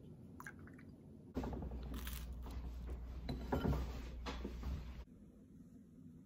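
A metal spoon clinks a few times in a ceramic coffee mug. About a second later comes a louder stretch of about four seconds of low rumble and rustling, which stops suddenly.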